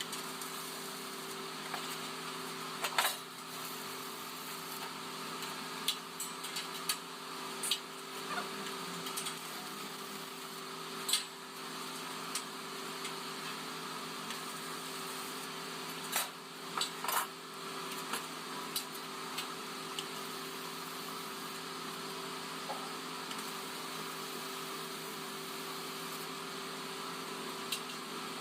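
A steady mechanical hum with a few fixed tones and a high hiss, broken by scattered sharp clicks and knocks, most of them around a quarter and again around two-thirds of the way through.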